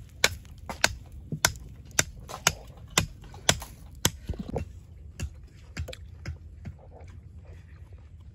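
A run of sharp knocks, about two a second, that become fainter and more scattered after about four seconds.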